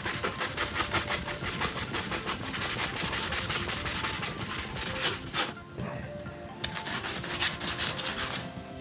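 A cloth rubbing briskly back and forth over the top panel of a Bose Acoustimass 5 bass module, wiping off sprayed cleaner and grime in fast, continuous strokes that ease off about five and a half seconds in and pick up again briefly. Background music plays underneath.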